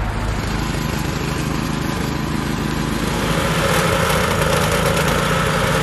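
Petrol vibratory plate compactor running steadily as it compacts fresh asphalt, a small engine with a rattling vibration. It gets a little louder and brighter a little after three seconds in.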